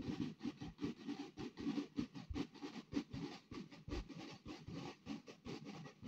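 Marching drums of a school drum corps beating a quick, steady rhythm, many hits a second.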